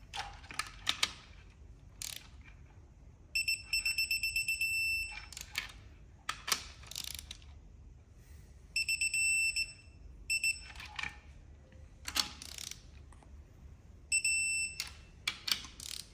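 Digital torque wrench beeping in rapid high pulses, a few times, as each head stud is pulled up to its 20 ft-lb first-pass torque. Short bursts of clicking and grinding from the wrench work fall between the beeps.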